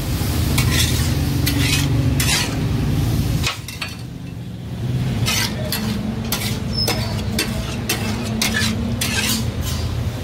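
Steel spatula scraping and clanking on a flat iron tawa griddle as chopped meat for taka tak sizzles in liquid, with irregular sharp clinks over a continuous sizzle. A steady low hum runs underneath, and the clanking eases off briefly about a third of the way in.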